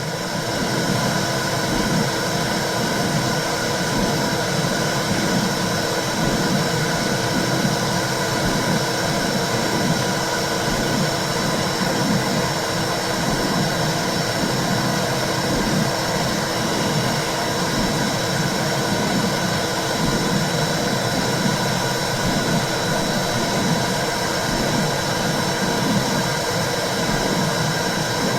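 Womb sound for babies: a steady whooshing rush with a low rhythmic pulse about once a second, like blood flow and a mother's heartbeat heard from inside the uterus.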